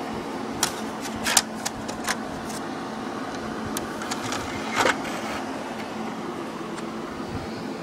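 Scattered plastic clicks and knocks of a game disc being handled and loaded into an Xbox console's disc tray, over a steady fan hum.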